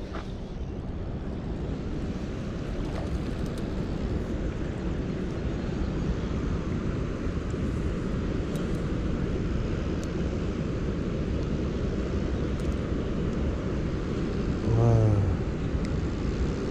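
Steady rumbling rush of water pouring out of the dam's outflow. About 15 seconds in, a man gives one short low vocal hum.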